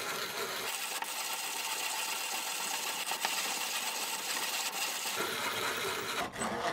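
A Zassenhaus 105 manual conical burr coffee grinder being hand-cranked, grinding coffee beans with a steady crunching rattle. Its burrs are set to the finest setting, just touching. The grinding stops shortly before the end.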